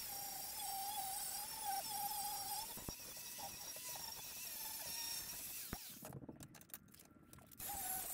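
Angle grinder grinding back welds on steel brackets, its whine wavering in pitch as it bites into the metal. The whine cuts out for a second or two near the end, then starts again.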